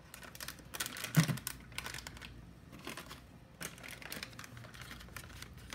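Plastic food pouches and wrapped snack bars crinkling as they are handled and moved around, in irregular rustles and crackles.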